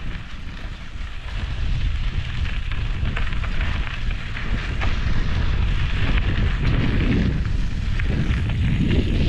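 Wind buffeting the microphone of a handheld camera on a moving bicycle: a heavy rumble that grows louder about a second and a half in, with a crackling hiss over it.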